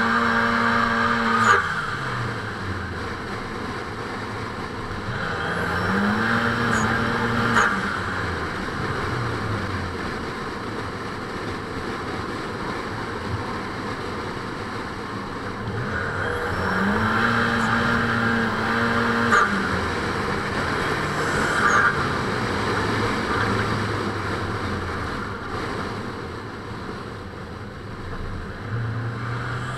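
Drift car engine revving up, held at high revs, then dropping off, twice, and rising again near the end. Tyres squeal while the revs are held, over a steady rush of wind on the microphone.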